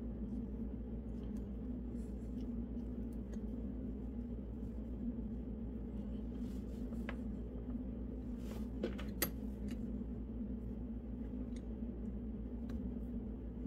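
Faint handling of insulated wires being twisted together by hand: small scattered clicks and rustles, with two sharper ticks about nine seconds in, over a steady low background hum.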